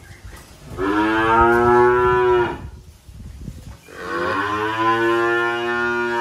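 A calf mooing twice: two long moos of about two seconds each, the second starting about four seconds in.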